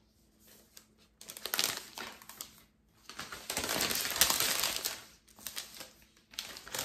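Protective wrap being peeled off a new laptop, crinkling and rustling in bursts, loudest through the middle.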